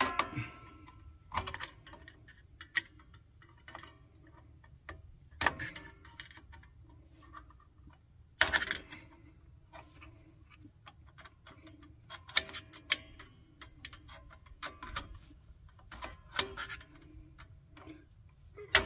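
Parking-brake cable and adjuster hardware being worked into place by hand: irregular metallic clicks and clinks, with a louder knock about halfway through.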